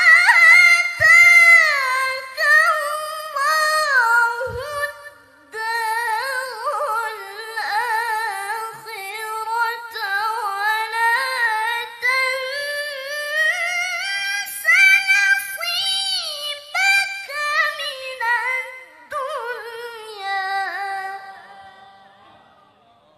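A young woman's voice reciting the Qur'an through a microphone in the melodic tilawah style, high and held through long ornamented melismatic phrases. She breaks briefly for breath about five seconds in, and the phrase fades away near the end.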